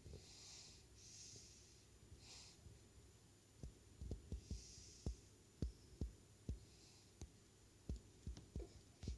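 A baby's soft breathy puffs in the first couple of seconds, then an irregular run of faint low thumps and taps. It is quiet overall, with no mouth raspberry clearly heard.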